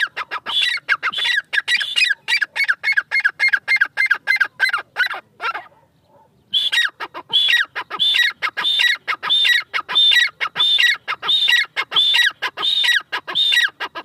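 Grey francolin (teetar) calling loudly: a run of rapid, harsh repeated notes, about four a second, breaks off after about five and a half seconds. After a short pause, a series of slower rising-and-falling notes follows at about two a second.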